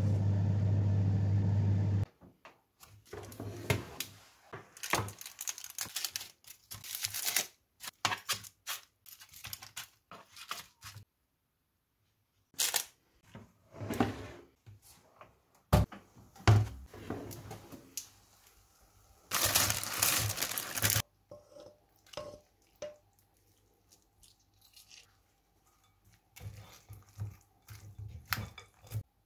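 Kitchen handling sounds: scrapes, clicks and rustles from a silicone spatula in a saucepan, an air fryer oven's tray being pulled out, and chicken wings being coated with a brush in a glass bowl. A steady hum runs for the first two seconds, and a longer burst of noise comes about two-thirds of the way through.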